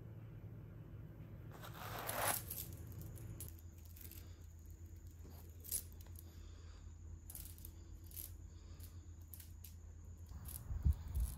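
Metal choke chain clinking in short scattered bursts as it is handled and slipped around a puppy's neck, over a low steady hum. A few low thumps near the end are the loudest sounds.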